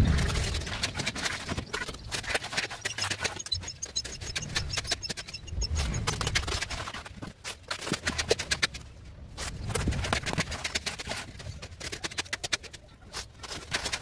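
A wooden board scrapes and taps over a wet concrete-and-gravel slab as it is levelled by hand, with loose gravel crunching and a few dull thumps.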